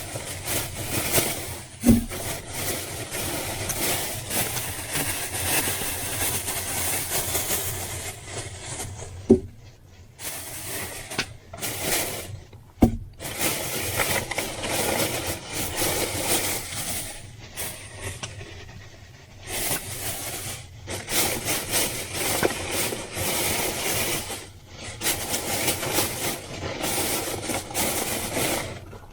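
Campfire of spruce wood crackling and popping, with three sharper, louder cracks.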